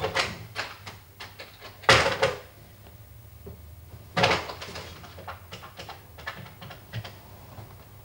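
Knocks and clatters: three loud sharp bangs about two seconds apart, with lighter clicks and taps between and after them.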